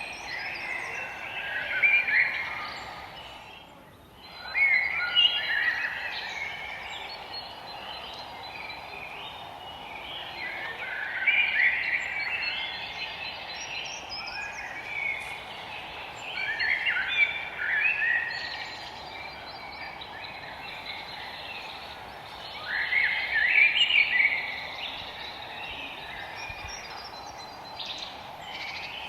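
Forest songbirds singing, with a short, quick warbled phrase repeated about every five or six seconds, over a steady background hiss.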